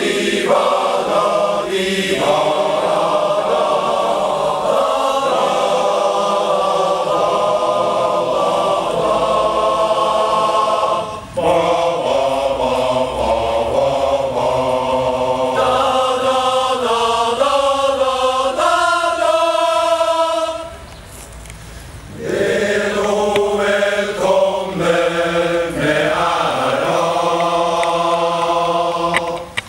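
A large men's choir singing in harmony, many voices moving together in sustained phrases. There is a brief break about eleven seconds in and a longer pause between phrases about twenty-one seconds in.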